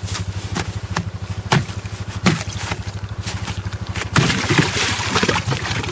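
ATV engine running at a steady idle with a rapid, even putter, with a few sharp knocks over it. About four seconds in, a louder hiss joins it.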